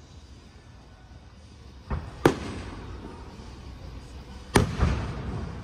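Aerial firework shells bursting: a lighter pop about two seconds in, quickly followed by a sharp loud bang, then two more loud bangs close together near the end, each trailing off in echo.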